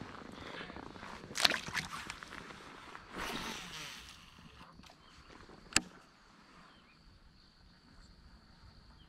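Handling sounds from a fishing kayak: a few knocks and a splash about a second and a half in, a second-long rush about three seconds in, and one sharp click near six seconds, over a faint steady high-pitched whine.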